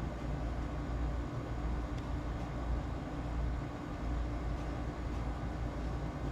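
Steady low rumble with a constant hum, with a faint click about two seconds in.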